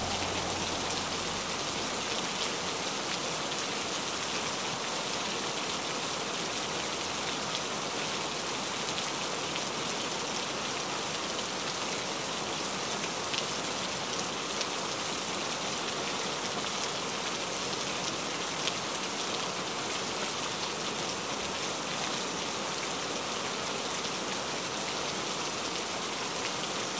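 Steady rain falling on window glass, an even hiss of drops with a couple of slightly louder individual drops.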